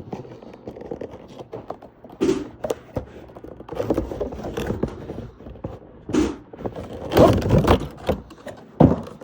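Packaging of a diecast model car being handled and worked open by hand: irregular scraping and rustling with a few knocks, the busiest stretch about seven seconds in and a sharp knock near the end.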